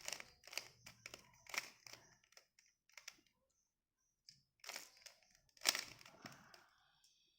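Plastic Rubik's cube being turned by hand, its layers clicking and clacking in quick runs of turns, with a pause of about a second midway.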